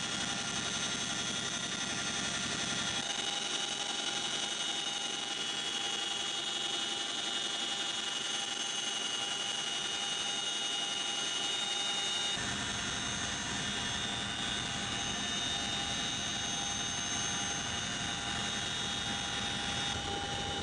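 Chinook helicopter's turboshaft engines and rotors running, with a steady high turbine whine over a broad rushing noise. The low rumble drops out about three seconds in and comes back about twelve seconds in, while the whine carries on.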